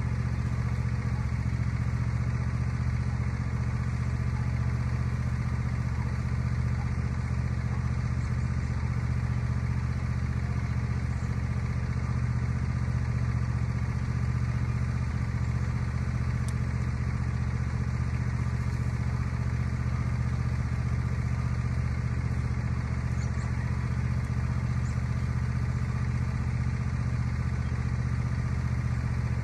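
Riding lawnmower engine running steadily at an even speed throughout.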